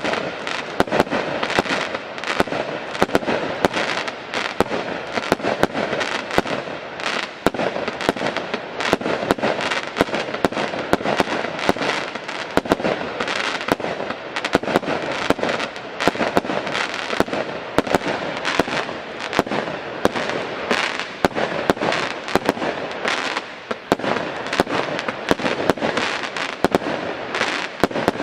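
A 100-shot, 20 mm consumer firework cake (Express Train, category F2) firing shot after shot. It is a rapid, steady string of sharp bangs, several a second, over a continuous hiss.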